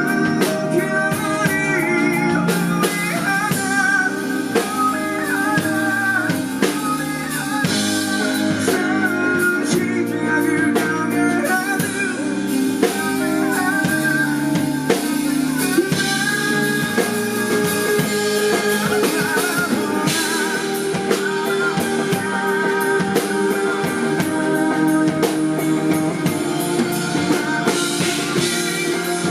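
A band playing a song live, with guitar and drum kit.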